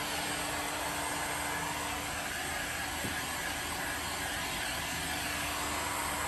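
Handheld electric heat gun running steadily, a constant rush of blown air with a faint steady hum, drying freshly applied water-based coloured stain on wooden panels.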